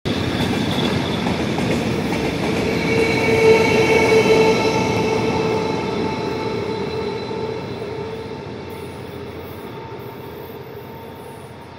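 Freight train running past: a steady rumble of the wagons with a high whine over it. It is loudest about four seconds in as the electric locomotive goes by, then fades as the train moves away.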